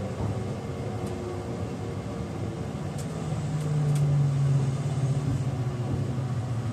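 E653 series electric train heard from inside the passenger car while running: a steady rumble carrying faint tones from its IGBT-VVVF inverter motors. A low hum swells between about three and five seconds in.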